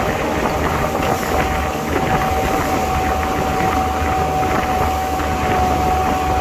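A vehicle's engine running steadily, with a low hum and a steady whine held at one pitch.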